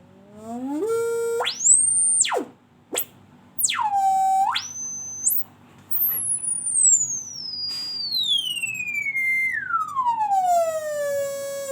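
An electronic sine-like tone sliding in pitch. It climbs in steps to a high whistle and drops back within the first few seconds, with two short clicks. It dips low and jumps high again, then falls in a long stepped glide from very high down to a low tone near the end.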